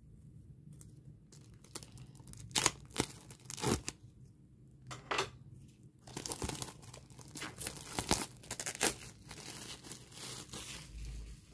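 Plastic shrink-wrap being slit and torn open: a few sharp rips, then a longer stretch of crinkling and rustling as the wrap is pulled off.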